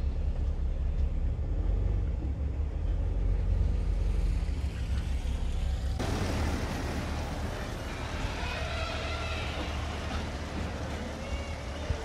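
BMW X5 SUV driving: a steady low engine and road rumble heard inside the cabin. About six seconds in, this switches abruptly to the same car heard from outside, its engine and tyres on the driveway as it rolls into the garage.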